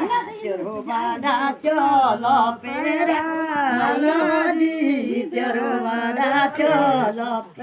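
Women singing an unaccompanied ceremonial song together, long held notes that slide up and down in pitch.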